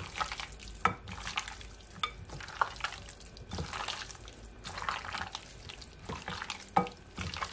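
A bare hand squishing and turning curry-seasoned goat meat in a glass bowl: irregular wet squelches with occasional sharper clicks.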